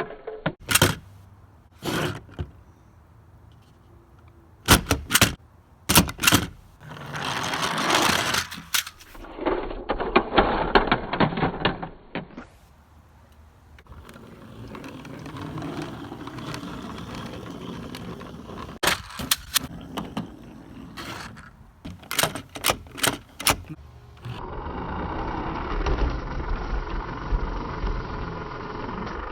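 Plastic toy cars and parts being handled: scattered sharp clicks and knocks, with stretches of rattling and rolling noise.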